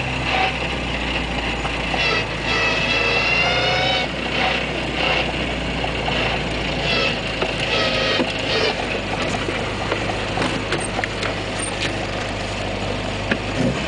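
Rally-prepared Jem KII's 998 cc Mini Cooper A-series four-cylinder engine idling steadily, heard from inside the cabin. A short higher-pitched squeal rises over it about two seconds in.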